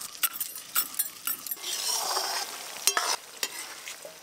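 Garlic crushed with a stone on a stone grinding slab (shil-nora), giving a few sharp knocks. Then sliced onions sizzle as they fry in oil in a wok and are stirred with a metal slotted spoon.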